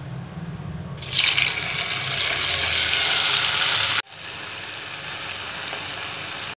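Hot oil in a kadai sizzling hard as bitter gourd (karela) slices deep-fry, starting suddenly about a second in. The sizzle cuts off abruptly a few seconds later and comes back quieter.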